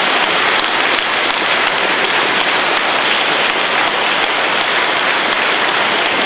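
Audience applauding steadily: many hands clapping in a dense, even wash of sound.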